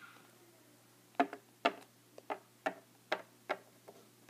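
Littlest Pet Shop plastic cat figure tapped along a hard tabletop: a row of light clicks about two a second, starting a little over a second in, the first two the loudest.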